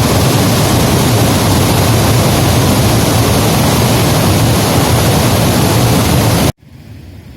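Heavy overflow pouring over a dam like a waterfall: a loud, steady rush of falling water. About six and a half seconds in it cuts off suddenly to a much quieter steady rush.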